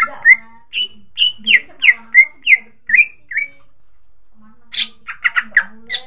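Cucak ijo (greater green leafbird) singing a run of short, sharp, downward-slurred whistled notes, about three a second. It breaks off for about a second past the middle, then comes back with a quicker burst of notes near the end.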